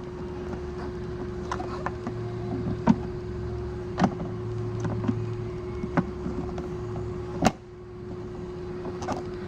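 Snowmobile rear storage compartment being handled: a few separate clicks and knocks, the loudest about seven and a half seconds in, over a steady hum and a low rumble that fades after the last knock.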